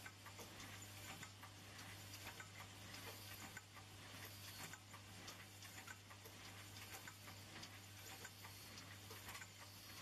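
Automatic vial filling, plugging and capping machine running, faint: irregular light clicks and ticks from its mechanisms and vials over a steady low hum.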